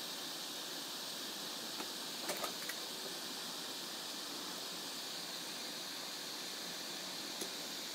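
Homemade hot air gun's 24 V blower fan running, a steady hiss of air blowing through the nozzle. A few light clicks about two seconds in and once near the end.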